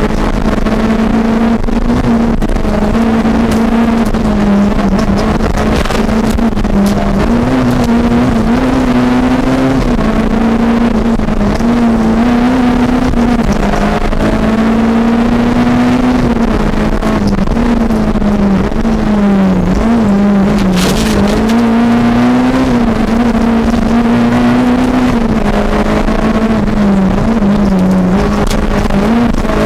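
Fiat 600 Kit rally car's engine heard from inside the cabin, running hard with its pitch repeatedly rising and dropping as the driver works the throttle and gears, over steady road noise.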